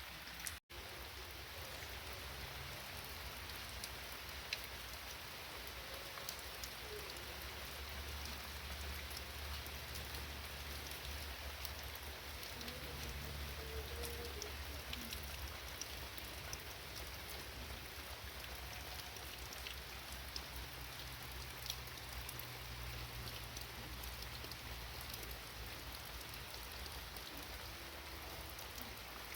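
Steady rain falling, an even hiss with scattered single drops ticking through it. The sound cuts out for an instant about half a second in.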